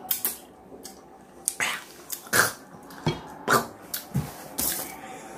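A person's short, sharp sucking and huffing sounds at the mouth, about ten of them at irregular spacing, while sucking a lemon to cut the taste of a mouthful of pure Sazón seasoning.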